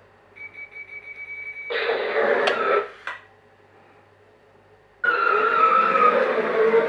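Electronic sound effects from the U-Command Batmobile Tumbler toy's built-in speaker: a steady beep, then a short noisy burst with a couple of clicks, and about five seconds in a sudden loud vehicle-like effect starts.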